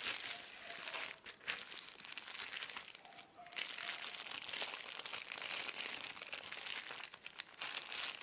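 Bubble-wrap and clear plastic bag packaging crinkling and rustling as it is handled and pulled open, going on and off with short pauses.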